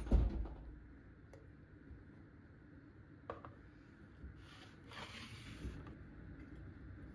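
A heavy thump as a glass jar of pickled red cabbage is set down on a stone board. A single light click follows a few seconds later, then a brief rustling hiss.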